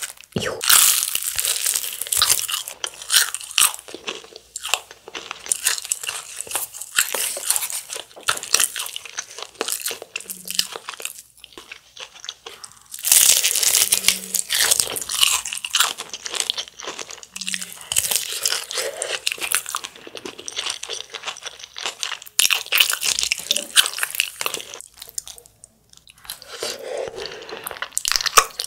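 Close-up crunching and chewing of crispy black pepper fried chicken, the crust crackling with each bite in uneven bursts, loudest about a second in and again about thirteen seconds in.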